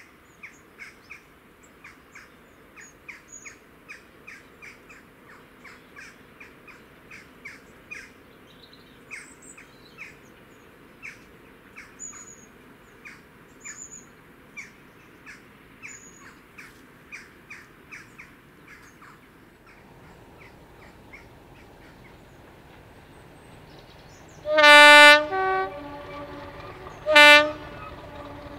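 A bird calling over and over, about twice a second, then the low rumble of an approaching Class 50 diesel locomotive, which sounds its two-tone horn near the end: a loud blast with a short lower note, then a second blast.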